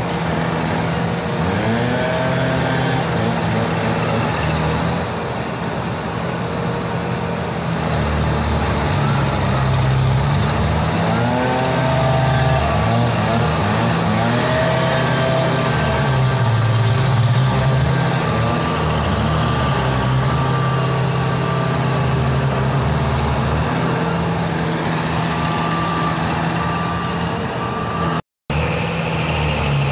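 Vermeer stump grinder running at working speed as its cutter wheel grinds into a tree stump, with a gritty chewing noise over the engine; the engine note dips and recovers several times as the wheel bites. The sound breaks off briefly near the end.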